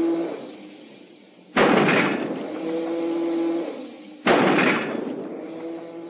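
Robot-monster sound effect, a sudden loud metallic crash with a steady ringing hum that dies away over about two seconds, played again and again: it starts twice, about a second and a half in and again just past four seconds.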